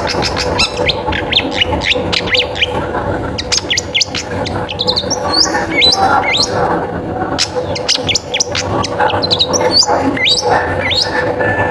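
Long-tailed shrike (cendet) in full song: a rapid, unbroken run of sharp chirps and short whistled sweeps, with a faint steady hum underneath.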